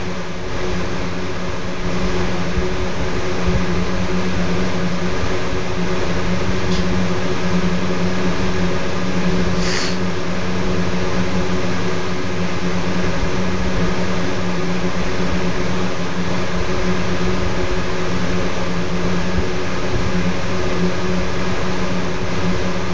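Steady mechanical hum with a constant low drone over an even hiss, as from a running household fan or similar appliance. A brief high sound cuts through once, about ten seconds in.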